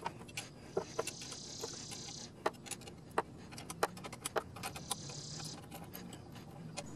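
Small sharp metal clicks and taps of an Allen key working a bolt loose from the crash-bar clamp. A high insect buzz comes in twice in the background, each time for a second or so.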